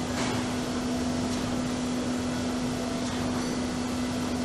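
A steady mechanical hum: one constant low tone over an even hiss, with a few faint ticks.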